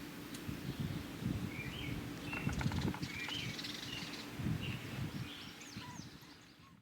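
Birds chirping in short, high calls over a low rumble of wind on the microphone, fading out at the end.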